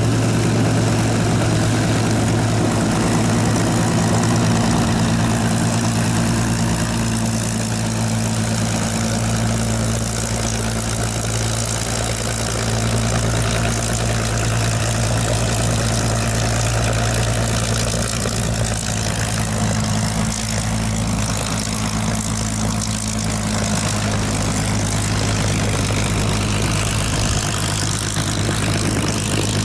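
A Supermarine Spitfire FR Mk.XVIIIe's Rolls-Royce Griffon V12 running steadily at low idle power while the aircraft taxis, a deep, even engine note with the propeller turning.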